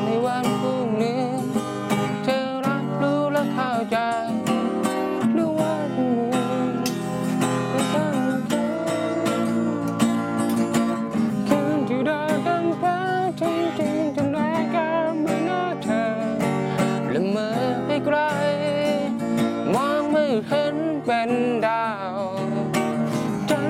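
A Thai song with acoustic guitar and a voice singing.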